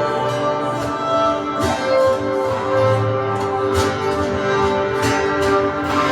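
Live instrumental worship music: sustained, held chords with a few soft percussive hits.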